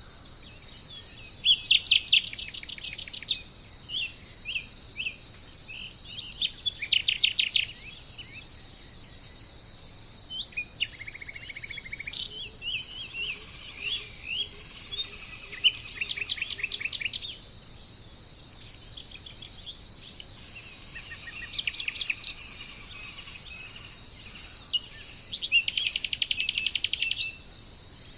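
Songbirds singing in short phrases of rapid, high, repeated notes every few seconds, over a steady high-pitched drone of insects.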